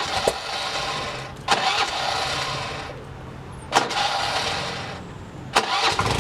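Honda Activa scooter's single-cylinder engine revved in four short throttle blips about every two seconds, each bringing a hissing whistle from a turbo whistle fitted in the exhaust that fades as the revs drop back to idle.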